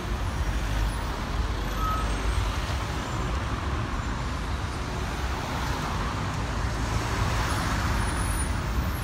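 Road traffic moving through a junction: cars and a double-decker bus driving past, a steady low engine rumble with tyre noise. A brief high squeak sounds about two seconds in.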